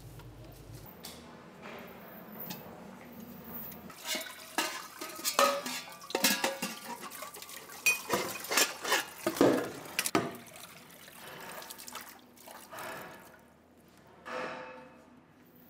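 Metal pots and dishes clinking and knocking as they are handled at a kitchen counter, densest in the middle, with some water splashing.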